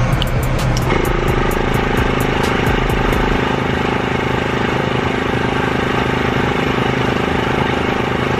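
Airbrush compressor motor running steadily with a hiss of air as red food colouring is sprayed onto fondant. The hum sets in about a second in and holds level.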